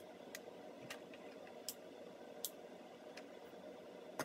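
Faint room tone with a low steady hum, and small sharp ticks about once a second at somewhat uneven spacing.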